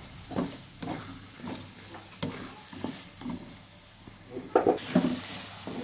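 Wooden spatula stirring and scraping a thick spice paste around a metal wok, about twice a second, while the paste sizzles in hot oil, louder near the end. The paste is being fried until it is cooked and fragrant.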